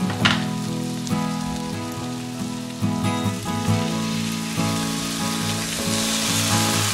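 Spiced potatoes and onions sizzling in oil in a non-stick wok, the sizzle getting louder near the end as tomato purée is poured into the hot pan, under background music.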